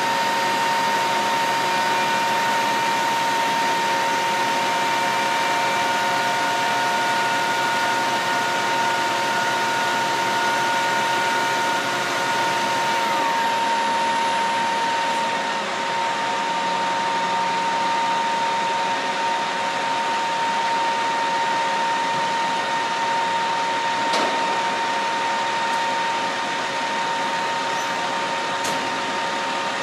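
Steady drone of running machinery with a constant whine. A second, higher whine drops in pitch and fades about 13 seconds in, as one machine winds down.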